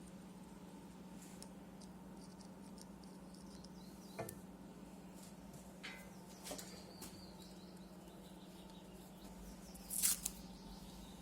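Faint, scattered small clicks and light scrapes, the loudest about ten seconds in, over a steady low hum.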